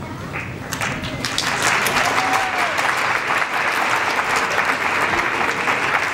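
Audience applauding: scattered claps that swell into full, dense applause about a second and a half in.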